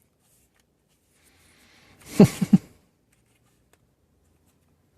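A single short hiccup about two seconds in: a brief gulping vocal sound that falls in pitch, with two quick catches right after it. Otherwise near silence.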